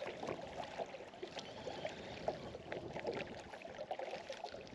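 Small waves lapping and slapping against the hull of a small skiff, a string of irregular little splashes over a steady wash of water.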